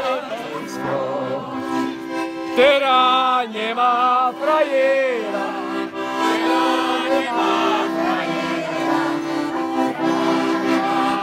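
Accordion playing a lively folk tune, with steady held bass chords under the melody, and voices singing along, loudest a few seconds in.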